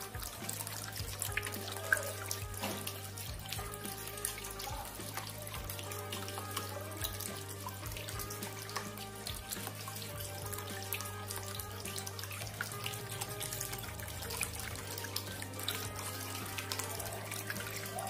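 Thin streams of water trickling and splashing from spouts into the bowls of a tiered cement waterfall fountain, steady throughout, under background music.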